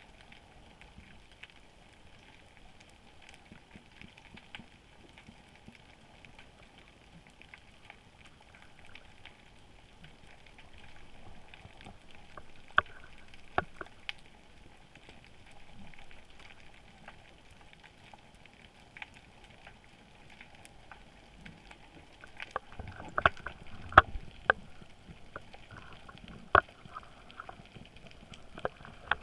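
Underwater sound through a camera housing: a steady faint hiss with scattered sharp clicks, and a run of louder clicks and knocks over the last several seconds.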